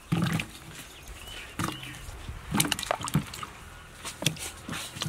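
Tomatoes and other whole vegetables dropped into water in an aluminium basin, splashing and plopping about six times in irregular succession.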